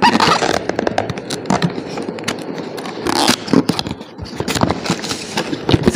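Cardboard box of glass condiment jars being handled and opened by hand: the cardboard scrapes and crackles under the fingers, with many quick clicks and taps and louder rustles near the start and about three seconds in.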